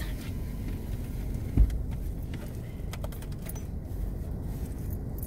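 Steady low rumble of a car running, heard from inside the cabin, with one dull thump about a second and a half in and a few faint clicks later.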